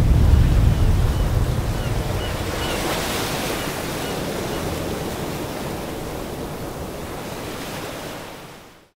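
Ocean waves washing, with a low rumble at the start that dies away over the first couple of seconds. The wash fades out near the end.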